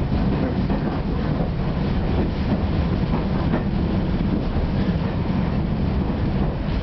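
Railway carriage riding along, heard from inside: a steady low rumble with scattered clicks of the wheels over the track.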